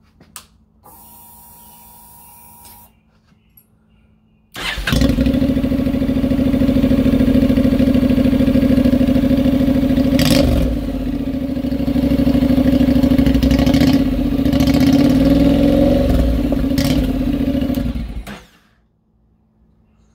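A 2013 Honda NC700X's 670 cc parallel-twin engine, running with the muffler removed so it exhausts through the open header pipe. A click and a brief whir come first. The engine then starts about four and a half seconds in, runs loud with its revs shifting about halfway through, and is shut off near the end.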